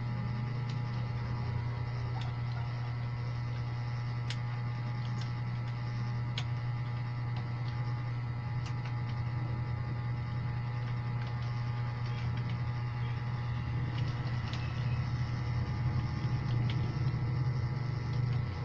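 Steady low hum, with a few faint, widely spaced clicks, such as single keyboard keystrokes.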